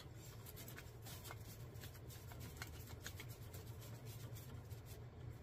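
Faint handling sounds, small clicks and rubbing, as an isobutane gas canister is threaded onto a camp stove's hose fitting, over a low steady hum.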